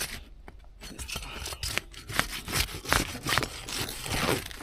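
Irregular scraping and rubbing of asphalt roof shingles being handled and lifted, with short rasping strokes.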